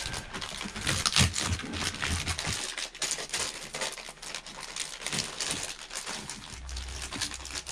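Thin clear plastic kit bag crinkling and rustling in the hands as a tree of clear plastic model parts inside it is handled and turned over.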